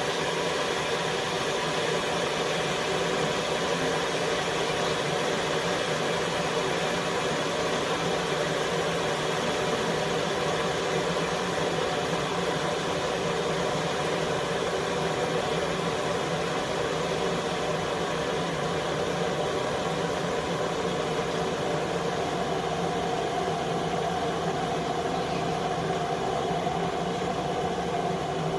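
COMFEE 1500 W stainless steel electric kettle heating water before the boil: a steady rushing hum with no breaks, one mid-pitched tone in it growing a little stronger near the end.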